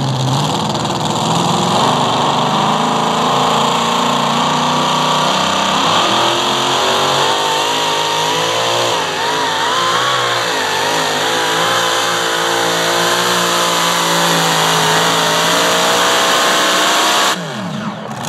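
Pro Modified pulling tractor's engine running at full power through a pull, its pitch wavering in the middle of the run. Near the end the sound drops off sharply and the engine's pitch falls as it winds down.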